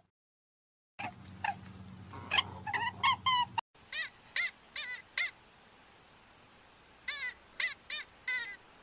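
Short, high-pitched squeaks from a small animal, each a brief call with a bent pitch. A quick run of lower squeaks starts about a second in. After a cut near the middle come higher, thinner squeaks in spaced groups.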